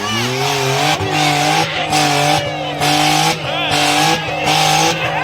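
Car engine held at high revs in repeated pulls, dipping briefly about every 0.7 s, with tyres squealing: a burnout.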